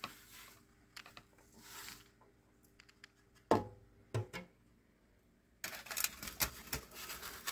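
Dried dextrose powder being scooped off a foil-lined sheet and poured through a plastic funnel into a glass jar. Scattered light clicks and two sharper knocks about three and a half and four seconds in, then a run of rustling, scraping noise from about five and a half seconds in.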